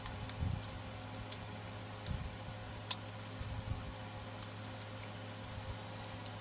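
Light, irregular clicks and ticks of copper magnet wire and a blender armature being handled during hand rewinding, over a steady low electrical hum.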